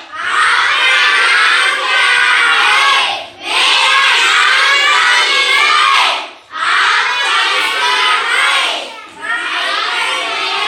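A classroom full of children calling out loudly together in long phrases, broken by short pauses about every three seconds.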